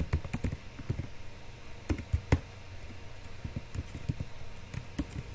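Typing on a computer keyboard: irregular key clicks, quick and crowded for the first couple of seconds, then sparser.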